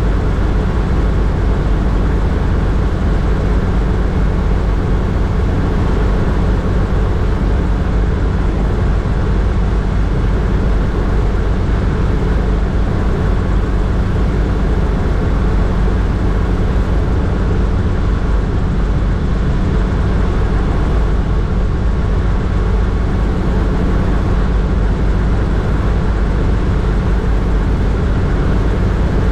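Hughes 269 light helicopter in steady cruise flight, heard from inside the cockpit: its piston engine and main rotor running at a constant pitch, with rushing air over the canopy.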